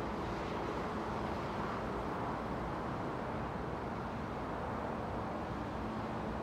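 Steady outdoor urban background noise, a continuous rumble and hiss with a faint low hum, the kind of din given off by distant road traffic and building machinery.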